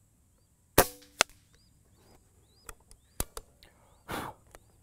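Benjamin Marauder .22 PCP air pistol firing once about a second in: a sharp crack with a short ring. A second sharp crack follows less than half a second later. A few lighter clicks come about two seconds later, as the bolt is worked to reload.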